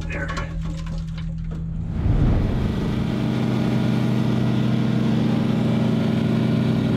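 Short knocks and scrapes over a low hum, then from about two seconds in a steady engine hum that runs at an even pitch.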